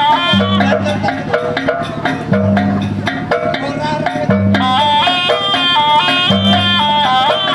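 Jaranan buto accompaniment music: a high melody in short stepped notes over dense drumming, with a deep low note sounding about every two seconds.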